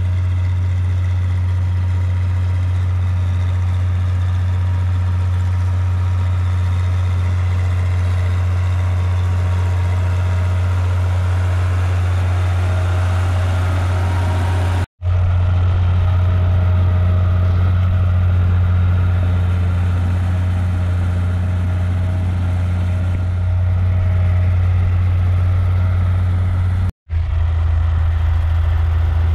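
Farm tractor's diesel engine running steadily under load as it crawls through deep paddy-field mud on rear crawler tracks, a constant low hum. The sound breaks off for an instant twice, about halfway and near the end.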